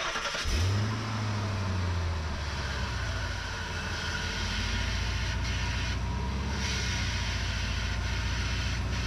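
Ford F-350 pickup's engine running: the revs rise briefly about half a second in, then it settles into a steady idle.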